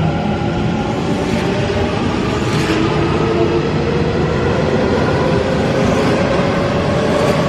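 An electric commuter train running along a station platform: steady wheel-on-rail rumble with a motor whine whose pitch drifts slowly upward.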